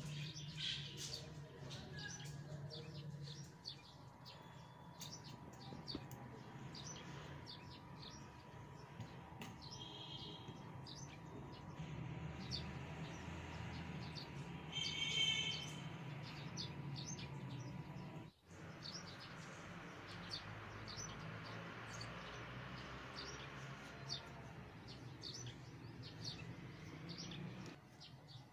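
Small birds chirping: many short high chirps throughout, with one louder call about halfway, over a low steady hum.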